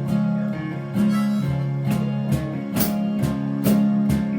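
Instrumental introduction to a song: strummed chords about once a second under steady held notes.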